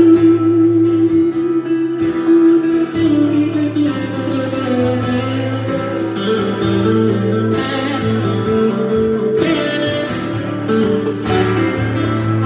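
A live band plays an instrumental break with no vocals. A lead guitar holds and bends notes over a steady bass line and drums.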